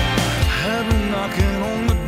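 Rock music backing track with a steady drum beat and bass. A wavering melody line comes in about half a second in.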